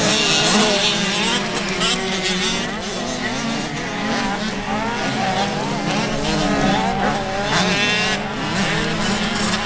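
Several 50cc two-stroke motocross bikes racing, their engines revving up and falling back, with several engine notes overlapping.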